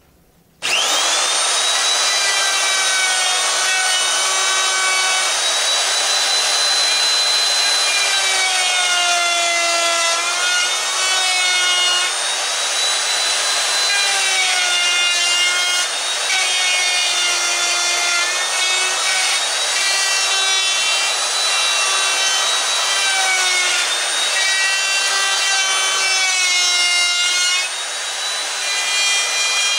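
Makita 800 W handheld router switched on about half a second in, spinning up quickly to a high whine, then milling an angled slot in wood with an 8 mm bit in several passes. The whine sags in pitch each time the bit bites into the wood under load and recovers between strokes.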